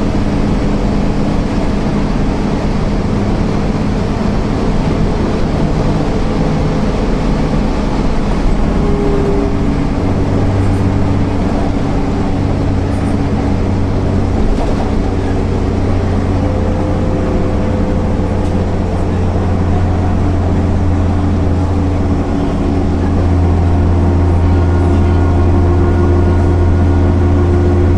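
MAN NL 262 city bus from 2000 under way, its diesel engine running steadily with the ZF automatic gearbox. The engine note shifts in pitch a few times and gets louder about three-quarters of the way through.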